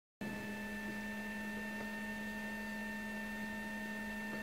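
Steady electrical hum in the recording, one low tone with several fainter higher whining tones over a faint hiss, starting a moment in and never changing.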